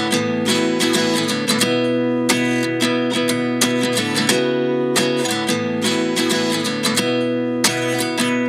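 Background music: a guitar playing a plucked and strummed instrumental passage at a steady pace, with no singing.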